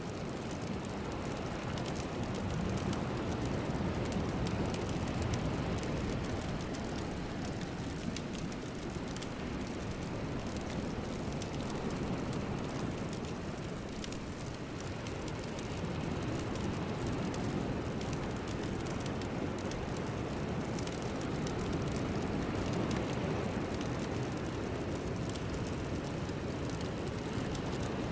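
A steady, deep rushing noise with faint crackles on top, swelling and easing slowly over several seconds, with no tune or voice.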